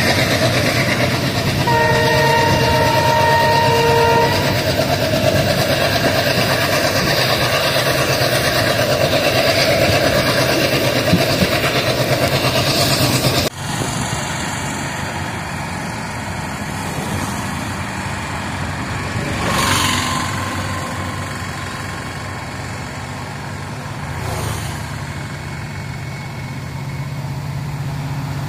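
Express train's running noise heard from the coach doorway, with a steady horn chord held for about two and a half seconds about two seconds in. About halfway through the sound cuts suddenly to roadside traffic, with vehicles passing twice and a low hum building near the end.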